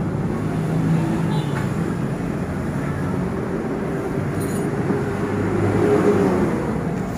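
Steady motor-vehicle engine noise with a low hum. The hum swells from about three seconds in, peaks near six seconds, and eases off near the end.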